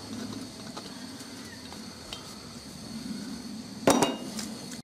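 A cast lead weight set down hard about four seconds in: a loud knock with a brief ring and a couple of smaller clinks, over a steady low background noise with faint handling clicks.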